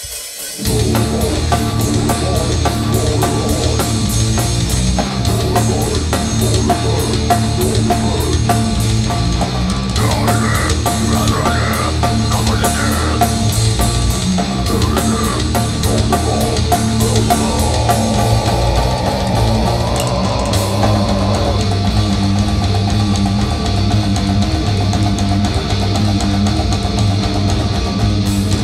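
Live grindcore band playing at full volume: guitars, bass and a drum kit thrashing fast, kicking in suddenly about a second in.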